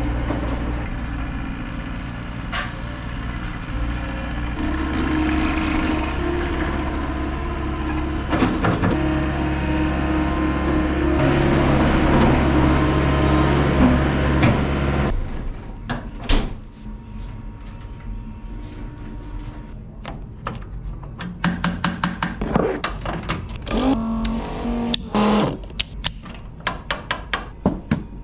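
Wheel loader's engine running and revving up twice under load, then shut off suddenly about halfway through, followed by scattered knocks and clicks.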